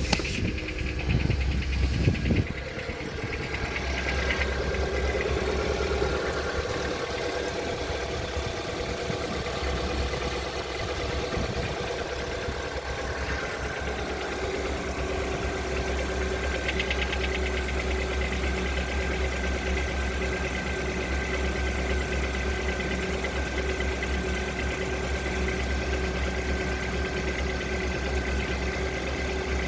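Lada Vesta engine idling with a knock from the engine. The engine surges unevenly for the first couple of seconds, then settles into a steady idle.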